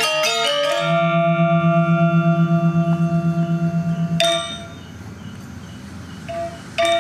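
Balinese gamelan: a quick run of struck bronze metallophone notes, then a held chord ringing with a fast pulsing shimmer. It fades after about four seconds to soft ringing, and loud strokes start again near the end.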